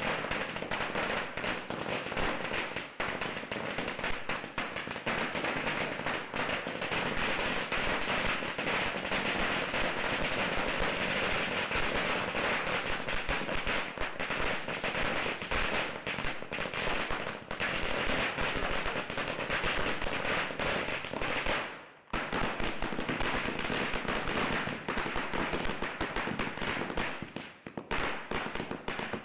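Strings of firecrackers going off in a dense, continuous rattle of sharp bangs, with a brief break about three-quarters of the way through.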